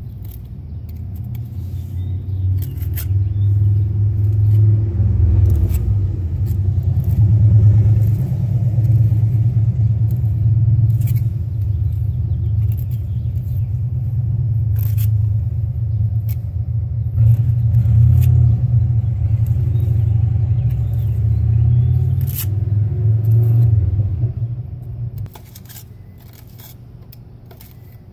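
A loud low rumble that builds over the first few seconds, holds, then drops away about 25 seconds in. Over it come light scrapes and taps of a steel trowel and pointing tool as lime mortar is packed into brick joints.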